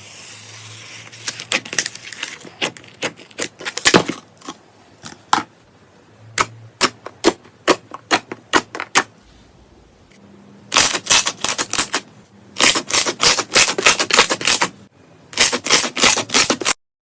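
Slime being pressed and worked, giving sharp clicking pops. Single pops come at uneven intervals at first, then three quick runs of rapid pops in the second half.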